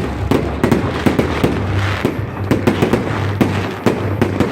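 Fireworks display: aerial shells bursting in a steady barrage of sharp bangs at irregular intervals, about two to three a second.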